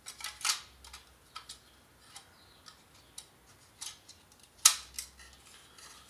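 Scattered small clicks and light knocks of plastic and sheet-metal parts as the protective housing over a Panasonic PT-AE700E projector's power supply is handled and fitted together. There is one sharper knock about three-quarters of the way through.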